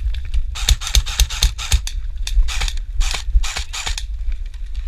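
A rapid run of scraping, rustling rasps, several a second for about three seconds, from the player moving during an airsoft game, over a steady low rumble on the microphone.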